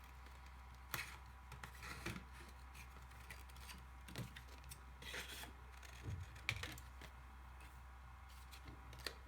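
Scissors cutting paper: a few separate snips and paper rustles spread over several seconds, over a faint steady hum.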